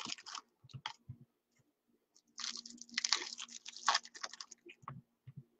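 Quiet crackling and clicking from trading cards and their packaging being handled, with a denser spell of crinkling in the middle.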